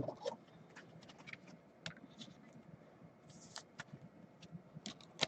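Trading cards being handled: faint, scattered clicks and short rustles of card stock and plastic sleeves, with a slightly louder click just before the end.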